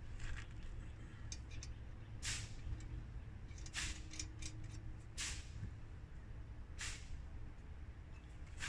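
Hands working at a small metal spirit-stove tin: five short, sharp scrapes about a second and a half apart, over a low steady rumble.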